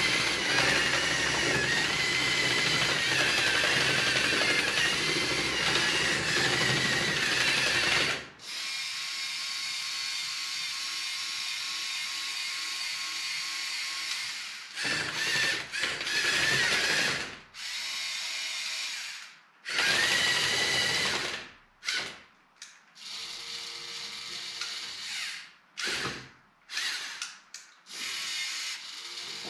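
Electric motors and gear trains of a LEGO Technic tracked RC straddle carrier whirring as it drives, with a high whine that wavers in pitch. It runs loud and unbroken for the first eight seconds or so, then more quietly, then in a series of short stop-start spurts in the second half.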